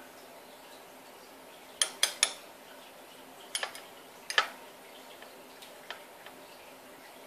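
Metal tongs clinking against drinking glasses: three quick clinks about two seconds in, then another few a second and a half later, the last the loudest, followed by a few faint ticks.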